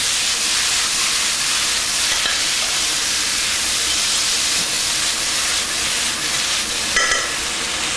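Green beans sizzling steadily in a pan of hot olive oil and butter with garlic and toasted almonds.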